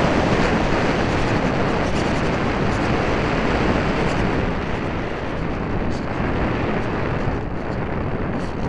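Wind rushing over the microphone of a keychain camera strapped to the fuselage of a flying RC airplane, a steady noisy rush that eases slightly about halfway through.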